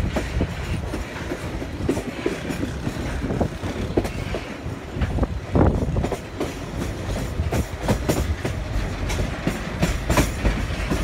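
Passenger train running along the track, heard right beside the carriage: a steady low rumble with irregular clicks and knocks from the wheels on the rails.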